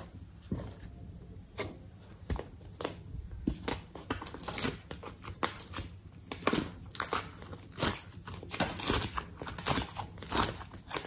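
Hands working slime and plastic piping bags: sticky clicks and crinkling crackles, sparse at first, then coming thick and louder from about four seconds in.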